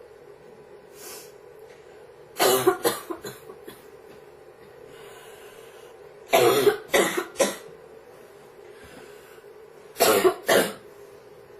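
A girl coughing in three separate fits: a run of about five coughs, then three, then two, each fit a few seconds after the last.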